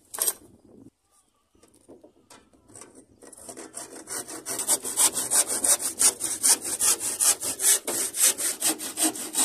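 Handsaw cutting through thin plywood, trimming a deck panel's overhang flush with the hull side. The sawing starts about three seconds in and settles into rapid, even strokes.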